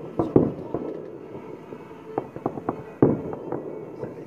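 Fireworks bursting overhead: a quick run of sharp bangs in the first second, a few lighter cracks around two seconds in, then a heavy bang about three seconds in, each trailing off in an echoing rumble.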